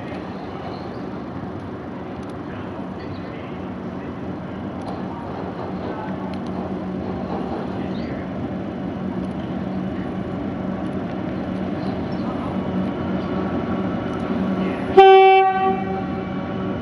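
Freight train's diesel locomotive approaching, its engine drone with a steady low tone growing slowly louder. Near the end it sounds one short horn blast.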